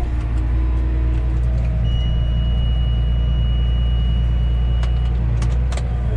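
Tractor engine running steadily under load while pulling a corn planter: a low, even drone. A thin, steady high tone sounds for about three seconds in the middle, and a few sharp clicks come near the end.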